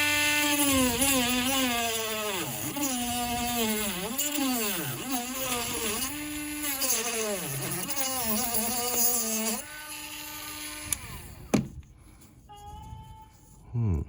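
Small handheld rotary cutting tool cutting into a charger's plastic casing: the motor's whine sags in pitch again and again as the wheel bogs down in the plastic, then recovers. It stops about eleven seconds in, followed by a sharp click and a fainter, higher whine near the end.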